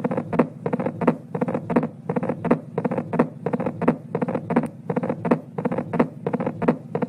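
Recorded heart sounds heard through a stethoscope: a steady run of heartbeats, each a lub-dub pair, played as an example of a loud first heart sound (S1). A faint steady hum lies underneath.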